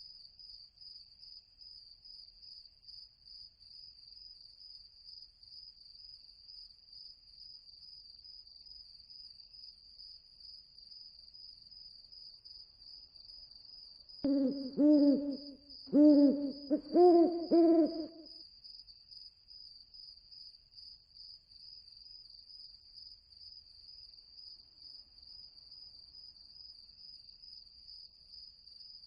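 Night-time ambience sound effect: crickets trill steadily, and about halfway through an owl hoots about six times in three quick pairs, the last pair a little higher.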